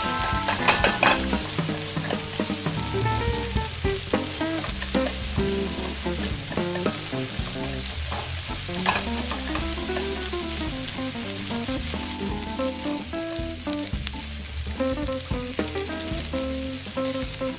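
Egg frying in a tiny stainless steel pan with a steady sizzle. A small metal knife stirs it, scraping and tapping against the pan, with a few sharp clicks.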